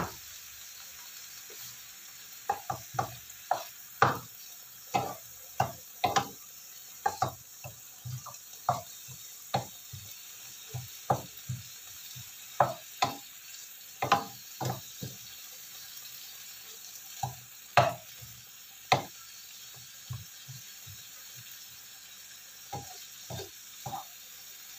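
Wooden spatula knocking and scraping against a nonstick wok while stir-frying meat and vegetables, with a faint sizzle underneath. The clacks come irregularly, several a second at times, with short pauses between bouts of stirring.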